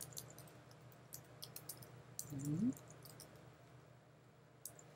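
Computer keyboard keys clicking as text is typed: scattered keystrokes, most in the first two seconds and one more near the end. A brief hummed voice sound comes about two and a half seconds in.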